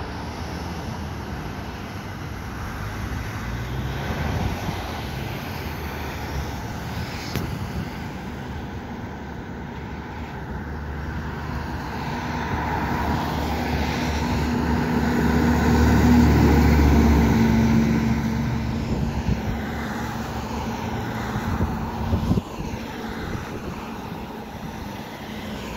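Diesel engine of a 2001 Spartan/Central States fire engine passing by amid road traffic, growing louder as it approaches, loudest about sixteen seconds in, then fading away. A brief knock comes about twenty-two seconds in.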